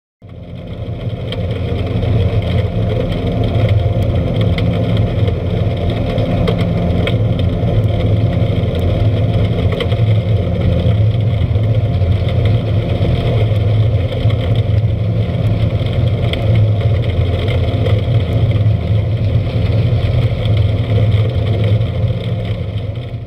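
Ship loader pouring coal into a ship's cargo hold: a loud, steady machinery hum with the rushing of falling coal. It comes in within the first second and stops near the end.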